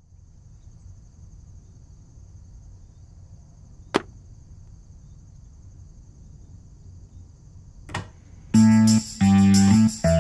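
Faint outdoor ambience with a steady high whine, broken about four seconds in by a single sharp thud as a bag of coffee lands on a concrete step and by a softer knock near eight seconds. Loud plucked guitar music then comes in at about eight and a half seconds and is the loudest sound.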